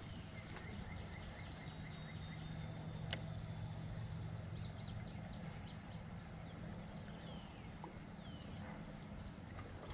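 Faint open-water ambience: a low steady rumble, with birds chirping in the background from about four seconds in. A single short click sounds about three seconds in.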